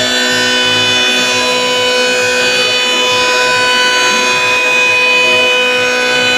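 CNC router running, its spindle giving a steady high-pitched whine of several fixed tones over an uneven low rumble.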